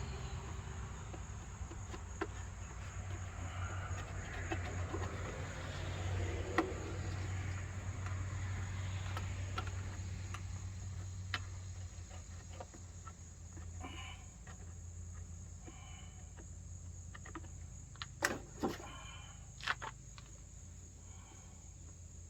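Stihl FS 111 R string trimmer engine idling low with a steady hum after being revved, fading somewhat about halfway through. A few chirps come in, and several sharp clicks near the end.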